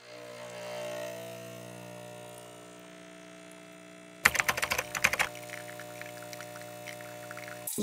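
Home espresso machine pulling a shot: the pump's steady hum, with a burst of loud rapid clicking about four seconds in, as espresso streams into the mug. The hum stops abruptly near the end.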